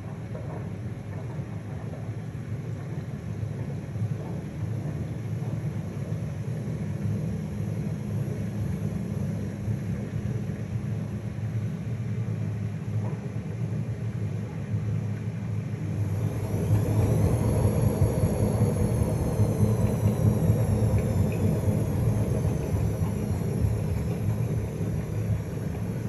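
Privileg top-loading washing machine running with a loud, steady rumble. About sixteen seconds in the rumble grows louder and a motor whine rises quickly in pitch, then slowly sinks.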